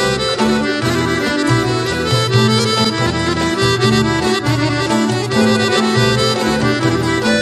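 Instrumental folk music, a busy melody over bass notes that change in a steady, even rhythm.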